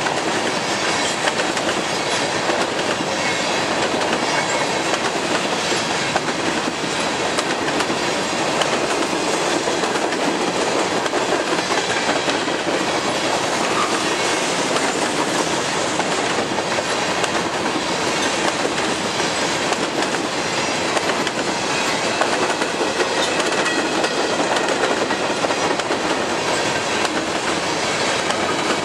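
A long freight train of Norfolk Southern covered hopper cars rolling past: the steady noise of steel wheels on the rails, carrying on without a break.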